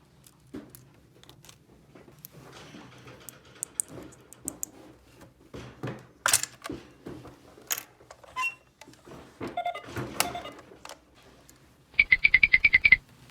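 Small plastic toy pieces handled with scattered clicks, taps and rustling, then near the end a rapid run of about ten loud electronic beeps from a battery-powered toy.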